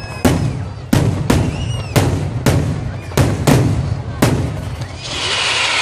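Aerial firework shells bursting, about eight sharp bangs at an irregular pace. A loud hiss then builds about five seconds in.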